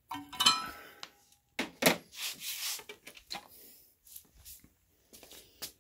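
Metal parts of a canister vending machine being handled: a ringing metallic clink right at the start, then a few sharp knocks, a stretch of scraping, and scattered small clicks.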